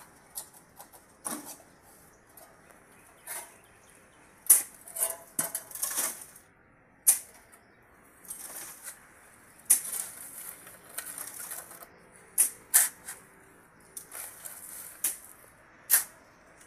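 Shovel scraping and scooping into a heap of gritty concrete mix for hollow blocks, in short scraping strokes every second or so, some louder than others.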